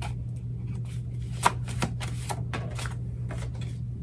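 Oracle cards being shuffled and handled, a run of irregular flicks and snaps with the sharpest about one and a half seconds in, over a steady low hum.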